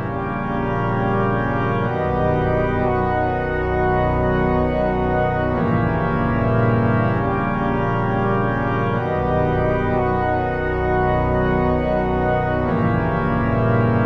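Soundtrack music of slow, sustained organ chords, changing about every three and a half seconds.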